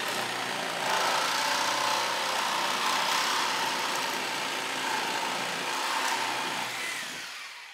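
Reciprocating saw cutting through a wooden 2x4 stud, the blade sawing steadily through the wood. The saw's noise dies away in the last second as the cut finishes.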